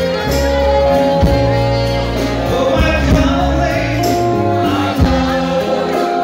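A man sings into a microphone over a live band. Held notes run over a steady beat with drum hits.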